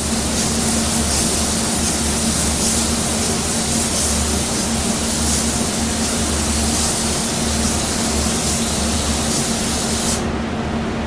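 Air spray gun hissing steadily as it sprays a thinned, more transparent base-coat blend coat onto a car fender, with the hiss stopping about ten seconds in. A steady low hum runs underneath.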